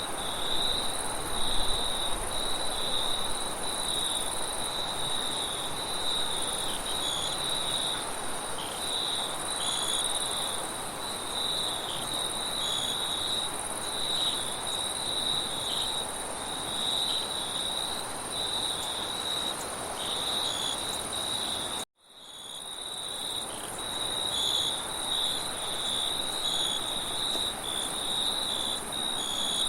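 Crickets chirping in a steady chorus, with a second, higher insect trill above them, over a steady rush of wind. About three-quarters of the way through, the whole sound cuts out suddenly and fades back up within a second or so.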